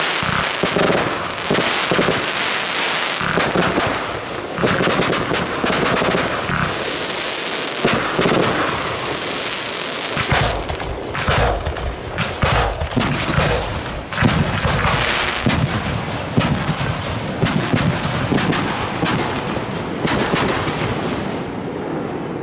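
Fireworks going off in quick succession: a fast, machine-gun-like string of sharp bangs over continuous crackle, thinning out near the end.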